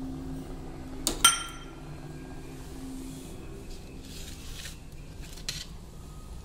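Stainless steel kitchen vessels clinking: two sharp metallic clinks about a second in, the second louder and ringing briefly, then a few faint knocks. A steady low hum runs underneath.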